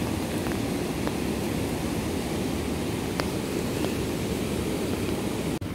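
Steady low rushing roar of typhoon wind and rain, with a few faint ticks and a brief cut-out near the end.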